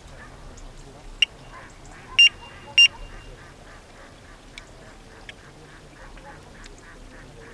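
Electronic carp bite alarm on a rod pod giving short high beeps as the line is set across it: one brief beep about a second in, then two louder beeps about half a second apart, with a few faint clicks afterwards.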